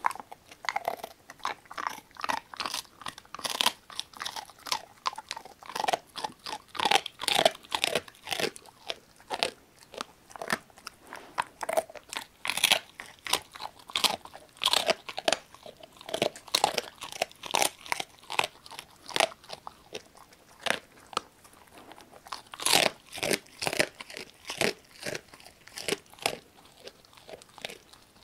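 A Labrador retriever mix dog crunching and chewing a duck neck bone treat, with many sharp, irregular crunches several times a second.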